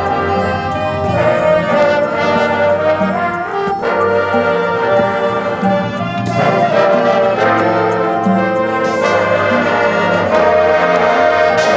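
Marching band playing a show piece: a full brass section sounding sustained chords over percussion that strikes a steady beat.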